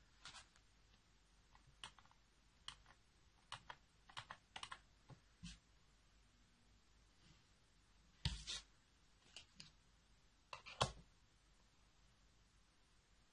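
Near silence broken by scattered faint clicks and taps at irregular intervals, with a small cluster about eight seconds in and a sharper tap near eleven seconds.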